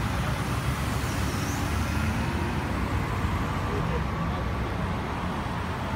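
A slow convoy of cars and SUVs driving past one after another: steady engine and tyre noise.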